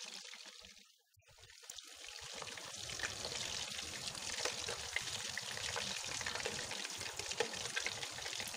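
Chicken pieces sizzling in hot oil in a kadai at the end of deep-frying, as the browned pieces are lifted out. The sizzle drops out for about a second near the start, then returns as a steady hiss with small crackles.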